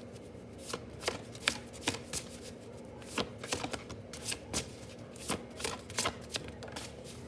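A deck of tarot cards being shuffled by hand: a run of crisp, irregular card snaps, about two a second.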